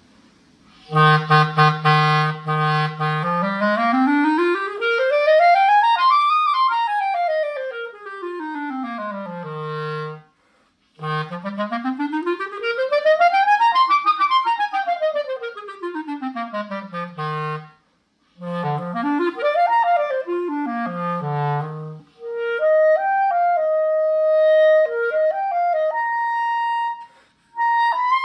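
Clarinet played with a Legere French cut synthetic reed: a held low note, then runs sweeping up from the bottom of the range about three octaves and back down, twice, a quicker shorter run up and down, and a short phrase of held middle-register notes. The reed gives a bright, open tone.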